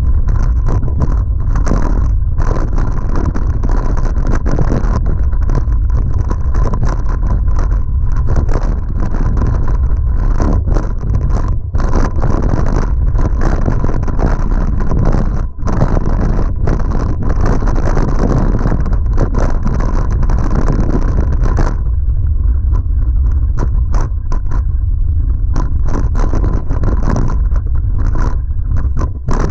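Full-suspension mountain bike (2011 Giant Trance X0) riding fast down a rocky trail: tyres crunching over loose rock and gravel, with many sharp rattles and knocks from the bike over the terrain, over a heavy low rumble of wind and vibration on the bike-mounted camera.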